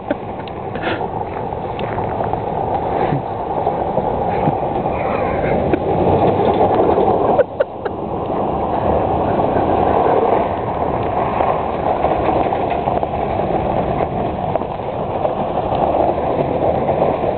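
Small pickup truck's engine running as it is driven around a paved lot, heard as a loud, steady rushing noise that swells and fades.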